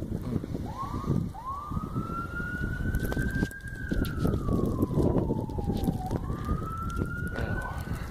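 A siren wailing: its tone rises near the start, holds high for a couple of seconds, slides slowly down, then rises again near the end. Heavy wind buffets the microphone underneath.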